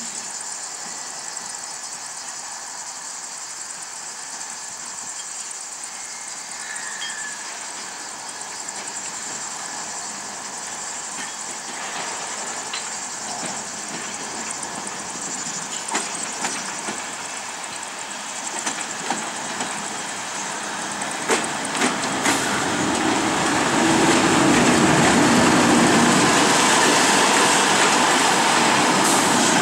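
TEP70BS diesel locomotive with its 16-cylinder diesel engine running as it approaches slowly and passes close by, the sound growing steadily louder and peaking in the last few seconds. A few sharp clicks come as it nears.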